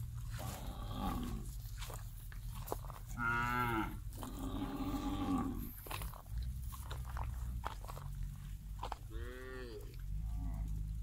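A herd of zebu cattle mooing, several long, drawn-out calls. Two follow one another from about three to six seconds in, and another comes about nine seconds in. A low, steady rumble runs underneath.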